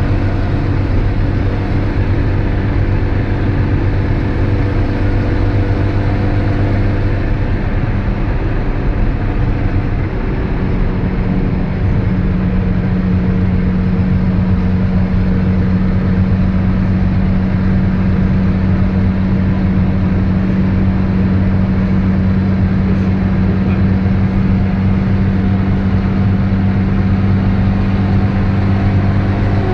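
Mitsubishi Galant VR-4's turbocharged four-cylinder engine running hard at high road speed, heard from inside the cabin as a loud, steady drone over road noise. About ten seconds in the drone steps up to a higher pitch and then holds.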